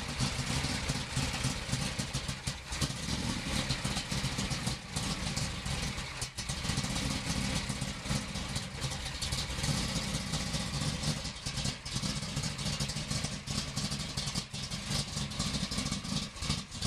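Engine of a 1959 Jaguar drag-race car, fitted with exhaust headers, idling steadily.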